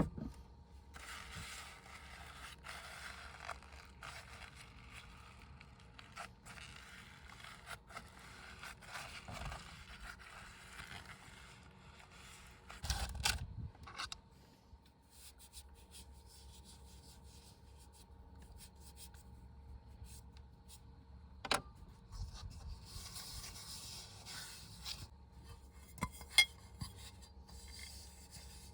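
Scraping and rubbing in stretches, with a few sharp knocks in between.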